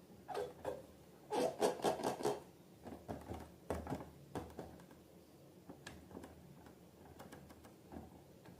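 Slime being squished and worked by hand: sticky clicks, first a quick run of them about a second and a half in, then scattered single clicks.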